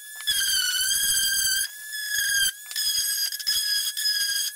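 Electric random orbit sander running on a wooden drawer: a steady high-pitched motor whine over a sanding hiss. The hiss drops out briefly about two seconds in, while the whine keeps going.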